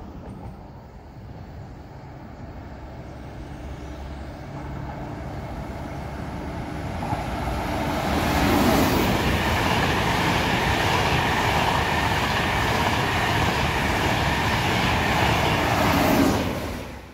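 ETR 500 Frecciarossa high-speed electric train approaching and passing at speed. Its running noise grows steadily for about eight seconds, then holds loud as the train goes by, swelling about halfway through and again just before it cuts off abruptly.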